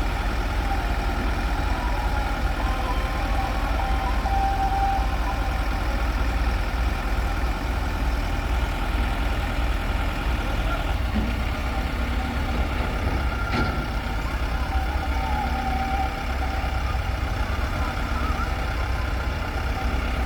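Heavy diesel machinery running steadily with a deep rumble and a faint higher whine, as an excavator works beside a tractor. One sharp knock about two-thirds of the way through.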